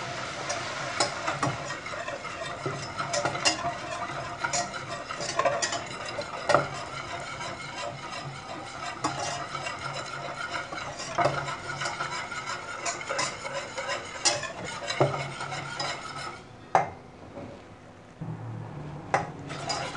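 Wire whisk scraping and clicking rapidly against a stainless steel saucepan as flour is whisked into hot melted butter to make a roux, over a light sizzle. The whisking stops a few seconds before the end, leaving a quieter sizzle and one or two single clinks.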